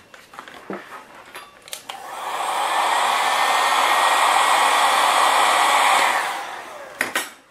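Handheld heat gun blowing hot air onto heat-shrink tubing over a soldered wire joint. The steady blowing starts about two seconds in, holds for roughly four seconds and winds down near the end, with a few short clicks before and after it.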